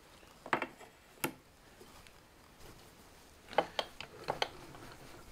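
Light metal clicks and knocks as a parting-tool holder is handled and seated on a lathe's tool post: two single knocks in the first second and a quick cluster of them about four seconds in.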